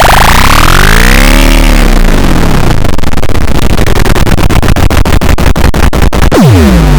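Loud, distorted, pitch-shifted iMovie sound effects: a pitched sound that glides up and back down, then a fast run of sharp clicks, then another swoop down and up near the end.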